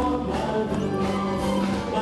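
Live pop music: a man sings into a handheld microphone over backing music, and the level stays steady throughout.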